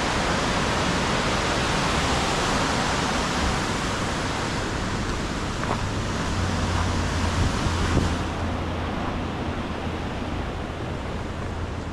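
Steady rushing noise of flowing creek water, turning a little duller about eight seconds in.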